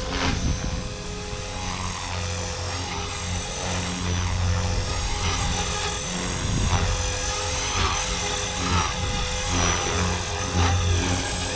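Blade Fusion 360 electric RC helicopter in flight: a steady rotor drone with a thin motor whine above it, swelling and easing as it is thrown through aerobatic manoeuvres.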